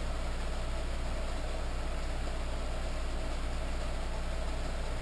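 Steady hum of a running electric motor, a low drone with a higher steady whine, unchanging throughout.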